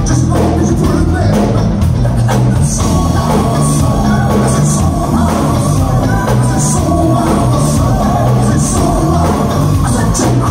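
Live band playing with singers: drum kit and congas keeping a steady beat under electric guitar and keyboards, loud throughout.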